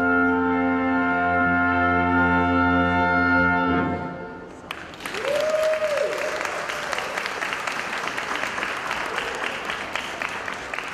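Brass ensemble holding a final chord, which stops about four seconds in. Audience applause breaks out just after, with one cheer, and goes on, slowly fading.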